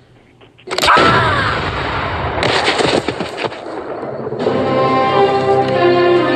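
Radio show intro sting: gunfire sound effects starting with a sudden loud blast and falling sweep about a second in, a rapid run of shots a little later, then music with sustained chords coming in at about four and a half seconds.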